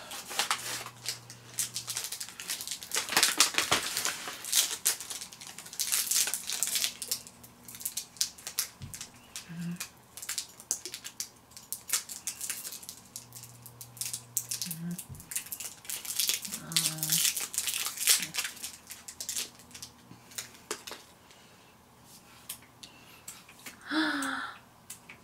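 Snack packaging crinkling and rustling in dense, irregular crackles as a bag of mini Kit Kats is opened and the small bars are unwrapped. The crackling thins out after about twenty seconds, and a short vocal sound comes near the end.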